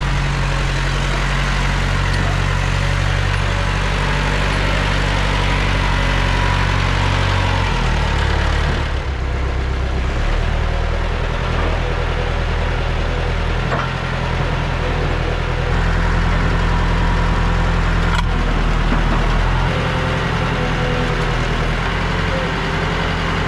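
Diesel engine of a Massey Ferguson 50B backhoe loader running steadily, its note changing a few times.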